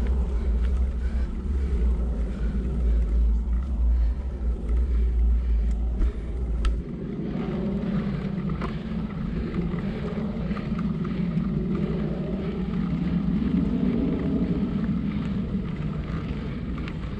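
Wind rumbling on a GoPro's microphone, with mountain bike tyres rolling over a dirt trail and a few light ticks. The heavy low wind rumble drops away about seven seconds in.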